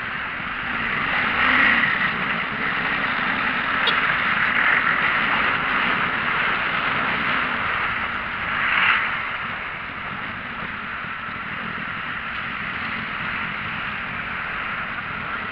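Traffic and road noise from a moving vehicle in heavy traffic: a steady rush of engines and tyres that swells a few times, loudest about nine seconds in, as vehicles pass close by.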